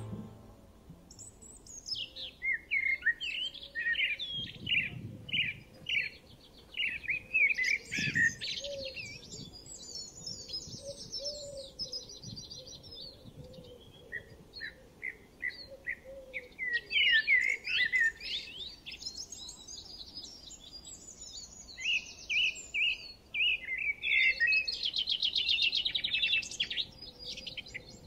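Songbirds singing: runs of quick, repeated chirps and high, fast trills, overlapping at times and coming in bursts with short lulls.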